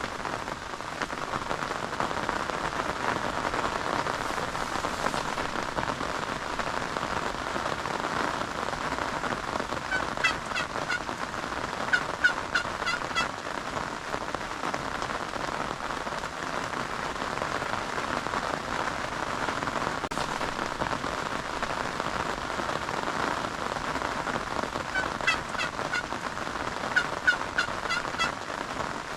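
Wild turkey gobbling in two bouts of rapid notes, about fifteen seconds apart, over steady rain falling on the surroundings.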